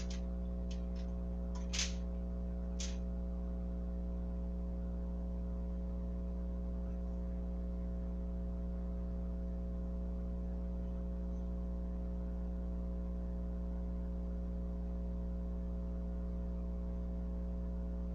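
Steady electrical mains hum with its overtones, unchanging throughout. It is broken only by two faint clicks in the first few seconds.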